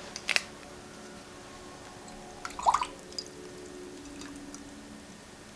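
Brief splashing and dripping of water as a flat brush is dipped and worked in a water pot, about two and a half seconds in, after a couple of light clicks near the start, over a faint steady hum.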